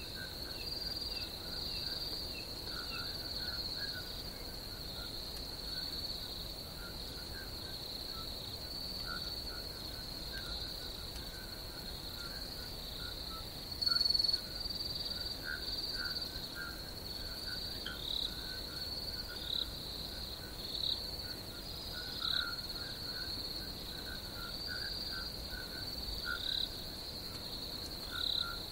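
Pond ambience at night: crickets trilling steadily in a high continuous chorus, with frogs calling in short irregular croaks underneath and a brief louder burst about halfway through.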